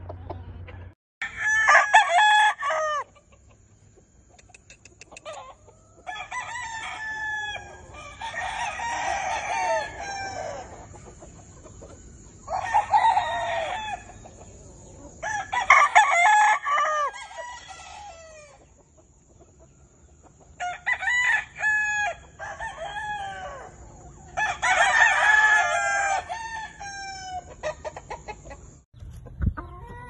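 Gamecock roosters crowing, about six crows of roughly two seconds each, several seconds apart.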